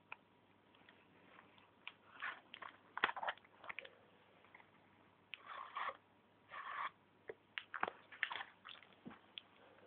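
Paper model gun being handled: irregular paper crinkles and rustles with scattered small clicks and taps as its parts are moved.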